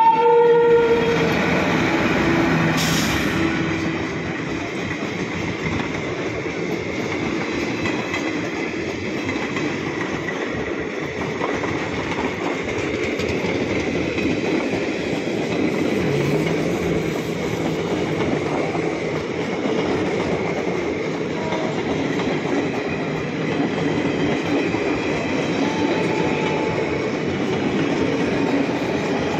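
An electric locomotive's horn, ending about a second in, then a long passenger train passing close by: a steady rumble and clatter of coach wheels on the rails.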